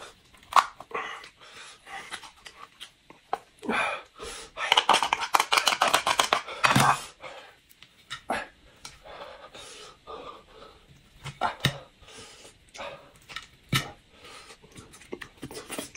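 Eating sounds: chopsticks clicking and scraping against a cooked lobster's shell as the meat is picked out, with scattered sharp clicks and a denser run of crackling from about four and a half to seven seconds in.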